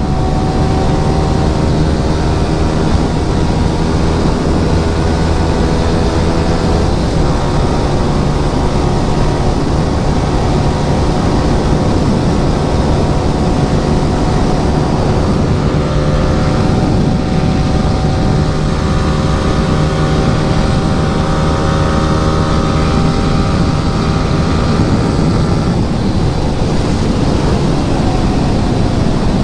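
Yamaha R15 V3's 155 cc single-cylinder engine through an Akrapovic R9 exhaust, running at a steady cruising speed. Its pitch holds nearly level, easing slightly in the last few seconds.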